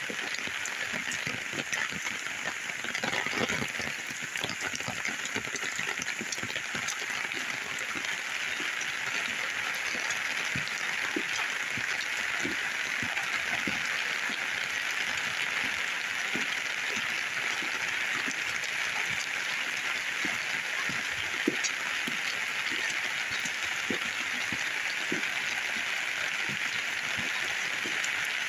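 Steady heavy rain from a hurricane's remnants, an even hiss with many individual drops ticking close by.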